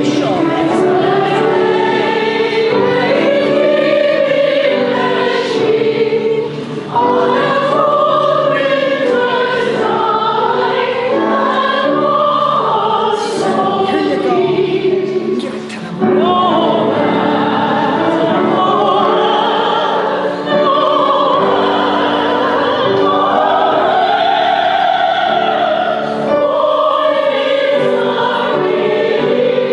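A choir singing in a classical style, held notes wavering with vibrato, with short breaks between phrases about 7 and 16 seconds in.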